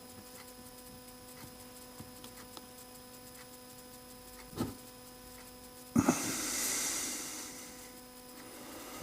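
Faint clicks and taps of the tiny ball, spring and bit-holder parts of an impact driver's quick-change chuck being handled and fitted, over a steady electrical hum. A sharper click comes about four and a half seconds in, and another about six seconds in, followed by a soft hiss that fades over about two seconds.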